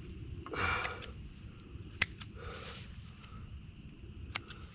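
Hoof trimming shears working on a goat's hoof: a few sharp clicks, the loudest about two seconds in and more near the end, with soft rustling between.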